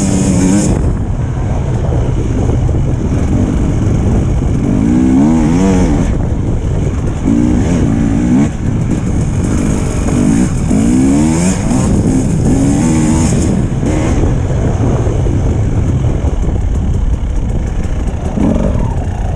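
Dirt bike engine heard close up from the rider's helmet, revving up and down while climbing a snowy track; the pitch rises and falls every second or two as the throttle opens and closes.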